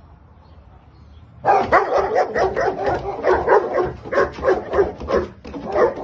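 Dog barking in a fast, continuous string of barks, starting about a second and a half in.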